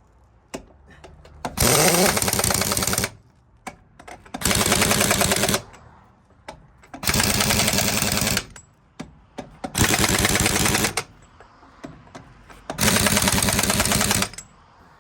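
Impact wrench driving lug nuts onto a truck wheel: five short bursts of rapid hammering, one nut after another, with pauses between.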